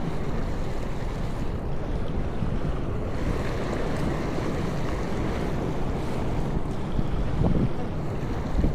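Steady rush of wind and surf, with wind buffeting the microphone in low gusts.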